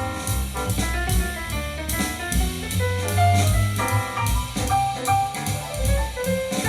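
Jazz music with drums and strong bass, played through a Sony LBT XB50 hi-fi system's bass-reflex speakers.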